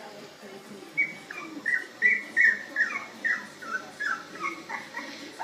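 Puppy whimpering and yipping: a quick run of short, high-pitched whines, each falling in pitch, about three a second, starting about a second in.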